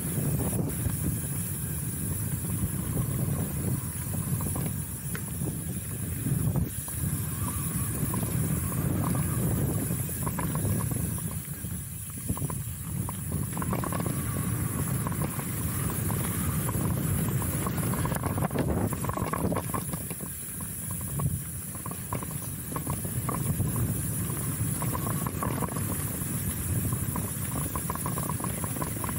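Steel hardtail mountain bike (Chromag Rootdown) riding down a dirt singletrack: tyres rumbling over the trail, with a steady clatter of chain and frame rattling over bumps.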